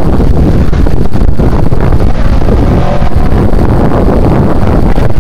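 Wind buffeting the microphone: a loud, steady low rumble that covers everything else.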